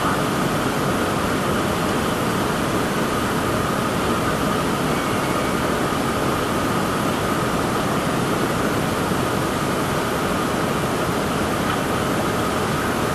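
Steady rushing noise with a faint high whine running through it, unbroken throughout.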